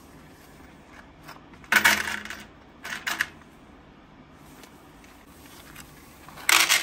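Small metal fasteners poured out of a pack, clattering into a container: a loud rush about two seconds in, a short one a second later, and another near the end.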